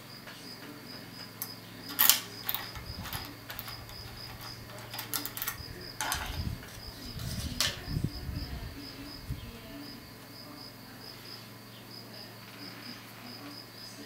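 Handling clicks on a brass pin-tumbler lock cylinder clamped in a vise as the key is pulled out and the picking tools are brought in: a sharp metallic click about two seconds in is the loudest, with more clicks and soft knocks around six to eight seconds. A faint high chirping pulse, several times a second, runs underneath.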